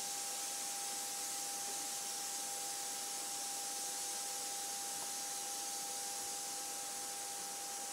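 Steady background hiss with a faint constant tone running through it.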